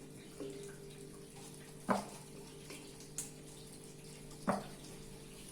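Two sharp knocks of a kitchen utensil against a bowl, about two and a half seconds apart, with a couple of lighter ticks, as grated lemon zest is put into sugar; a steady low hum runs underneath.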